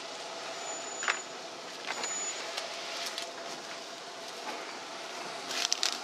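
Steady background hum with a few short knocks and rustles: one about a second in, one about two seconds in, and a quick cluster near the end, as a cut jackfruit half is handled and lifted on the table.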